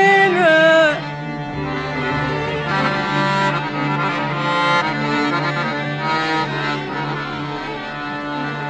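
Instrumental interlude of an Egyptian classical Arabic orchestral song, with an accordion-like melody over sustained strings and a steady low bass. A wavering melodic line breaks off about a second in, and the ensemble plays on more softly.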